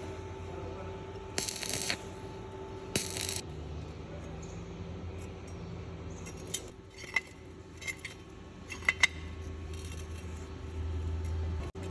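Small metal pump parts clinking and tapping against each other and the bench, a run of sharp, ringing clicks in the second half, after two short bursts of hiss early on.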